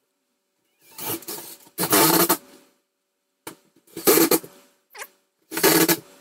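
Cordless drill/driver driving screws through the ceiling grille into the fan housing's sheet-metal flange, in several short bursts with pauses between. The screws are run in briefly, not cranked down, so they do not strip the thin metal.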